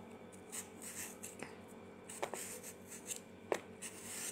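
Tupperware hand peeler scraping the skin off a potato in short strokes: a faint rasping with a few light clicks about a second apart.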